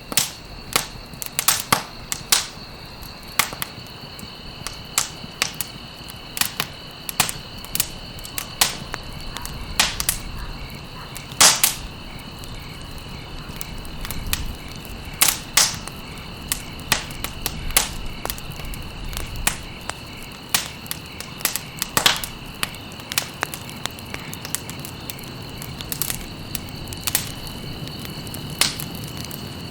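Campfire burning with irregular crackles and sharp pops, a few louder snaps among them. A steady high insect trill sounds underneath.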